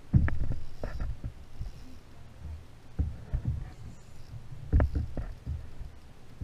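Irregular dull knocks and bumps on a kayak's hull, over a low rumble of water moving against the boat. The strongest knock comes just after the start, with a handful more scattered through.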